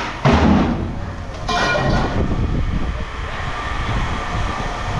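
Scrap metal clattering as pieces are tossed into a bin: a loud crash about a quarter second in, then a ringing metallic clatter about a second later, over a steady low rumble.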